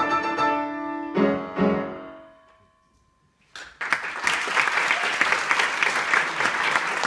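Grand piano plays the final chords of the aria, two loud chords that ring away into near silence. After a second or so of quiet, audience applause breaks out and continues.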